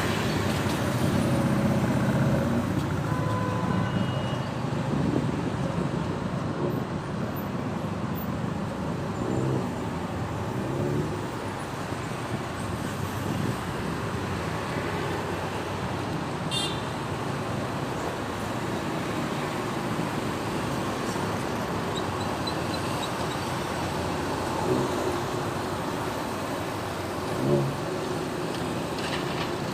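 Steady city road traffic running past, with occasional short car horn toots.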